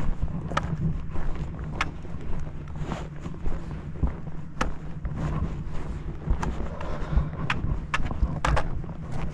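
A hiker's footsteps while walking, with irregular sharp clicks about a second apart over a steady low rumble of wind on the microphone.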